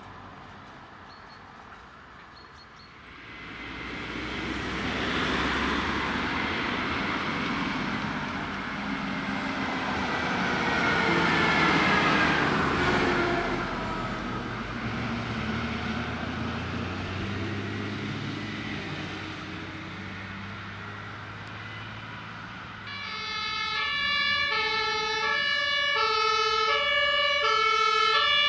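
A German fire engine (HLF 20/16) drives past, its engine and tyre noise swelling and falling away with a downward slide in pitch as it goes by. About five seconds from the end, a fire engine's two-tone air horn (Martinshorn) starts, alternating steadily between a high and a low note.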